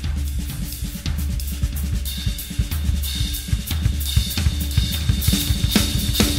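Music with a steady drum-kit beat: bass drum, snare and cymbals over a bass line.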